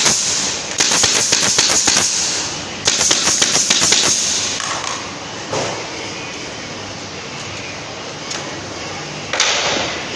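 Pneumatic nail gun firing into wood in two quick runs of rapid shots in the first half, then a short burst of hiss near the end.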